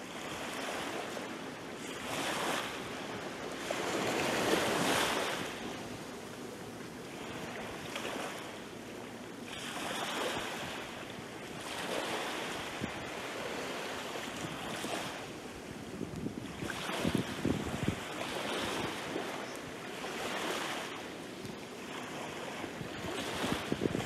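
Small waves breaking and washing up a sandy beach, a soft rushing wash that swells and fades every couple of seconds.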